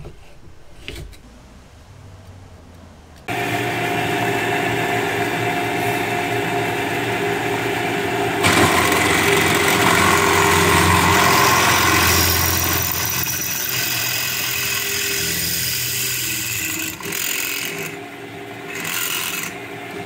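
A few light hammer taps on the steel upper shock mount. About three seconds in a benchtop drill press starts and runs steadily, and from about eight seconds in its bit cuts loudly into the mount's studs to drill them out, easing off near the end.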